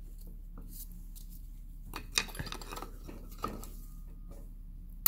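A few light metallic clicks of a wrench being fitted to the rusty flange bolts of a car's centre drive shaft, the sharpest about two seconds in and another about a second later, over a faint steady hum.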